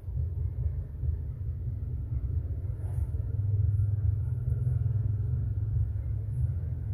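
A steady low rumble with nothing higher in pitch above it, and a faint click about three seconds in.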